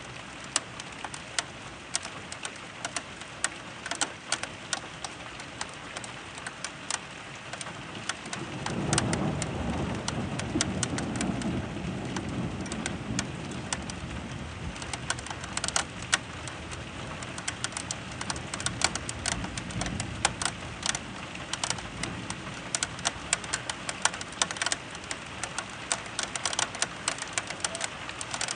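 Thunderstorm rain, with many drops tapping sharply close to the microphone. About a third of the way in, a low roll of thunder swells and fades out over several seconds.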